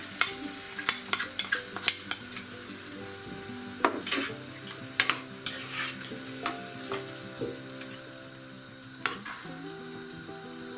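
A metal spoon scraping and clinking against a small ceramic bowl and a frying pan as pork stock is scraped in and minced pork is stirred, over the pan's sizzle. The clinks come thick in the first two seconds, again around four to five seconds in, and once more near nine seconds.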